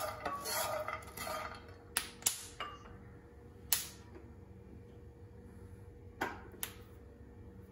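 A wooden spatula stirring peanuts around a nonstick pan, scraping in a steady rhythm for the first couple of seconds. After that, about six short sharp pops come from the peanuts as they dry-roast, the popping that shows they are roasted.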